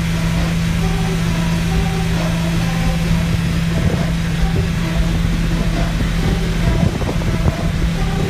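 A car audio system holding a single steady low tone, loud and unbroken, with short repeating higher notes of music above it.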